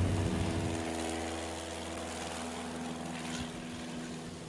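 Single-engine light bush plane's propeller engine droning at full power as it takes off and climbs away, the sound steadily fading as it recedes.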